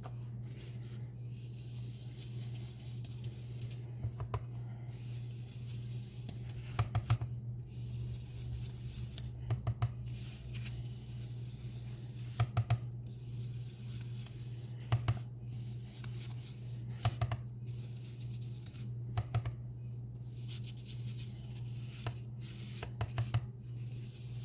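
Blending brush rubbing ink onto cardstock, a soft scrubbing, with short clusters of light taps every two to three seconds, over a steady low hum.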